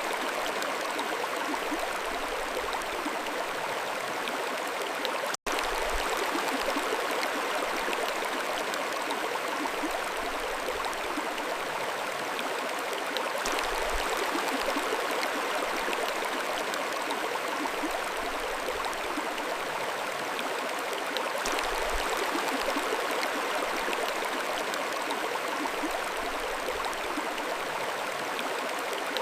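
Mountain stream flowing, a steady rush and gurgle of water with no change in level. The sound cuts out for a split second about five seconds in.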